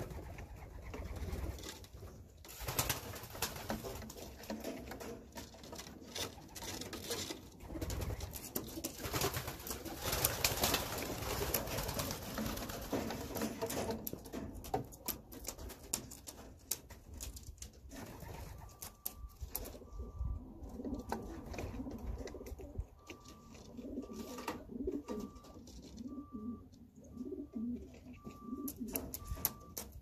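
Racing pigeons cooing in their loft, with frequent scuffles and clicks of birds moving about. From past halfway a faint regular high peep repeats more than once a second.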